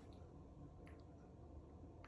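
Near silence: room tone, with a couple of faint ticks about a second in.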